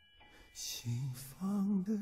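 A slow, soft song from a film musical. After a brief hush at the start, a sung voice with vibrato comes in about a second in, with short hissing consonants between the notes.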